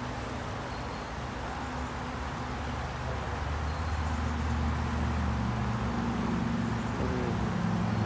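Rushing river water over rocks, with the low hum of a vehicle engine or road traffic underneath that grows louder about halfway through.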